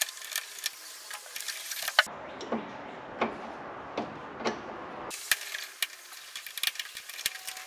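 Flathead screwdriver working the small screws out of a door-handle trim piece on a VW Beetle door panel: scattered light metallic clicks and scrapes, coming faster in the last couple of seconds.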